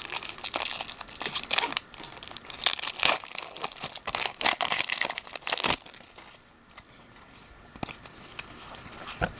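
Foil wrapper of a Pokémon TCG HGSS Unleashed booster pack being torn open and crinkled: dense crackling for about six seconds, then much quieter.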